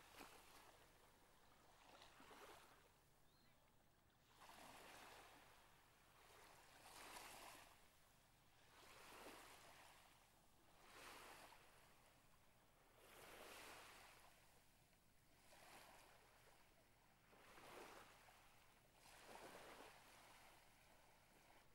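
Small lagoon waves washing softly onto a sandy beach: a faint hiss that swells and fades about every two seconds.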